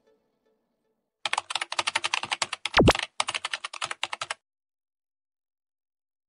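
Computer keyboard typing sound effect: a rapid run of key clicks starting about a second in and lasting about three seconds, with one heavier thump partway through.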